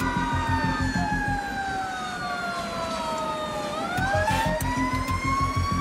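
Emergency siren in one slow wail, falling in pitch and then rising again about two-thirds of the way through, over a fast low pulsing beat that drops out for a couple of seconds in the middle.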